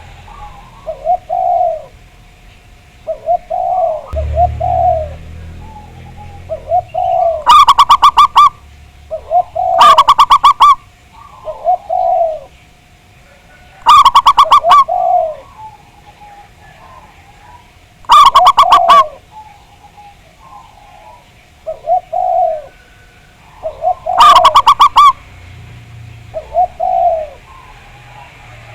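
Zebra doves (perkutut) cooing: a chorus of short rolling coo phrases repeating every second or two. Louder bursts of rapid staccato notes come about every four to six seconds, loud enough to distort.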